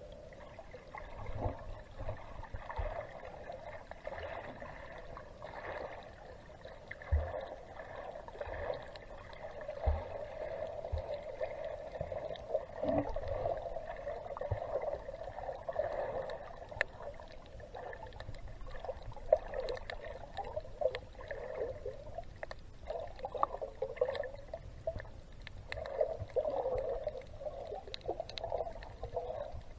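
Muffled underwater sound picked up by a submerged camera while snorkelling: an uneven gurgling and rush of moving water, with a few short low knocks in the first third.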